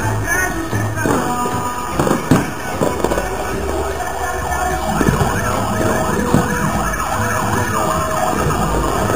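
Street fireworks going off over music playing nearby: several sharp bangs and many rising and falling whistles, over a steady thumping bass.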